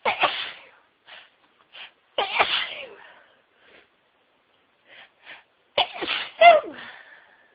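A woman's sneezing fit: a hard sneeze at the start, another about two seconds in, and a loudest one near the end that ends in a high voiced cry, with short quick breaths in between.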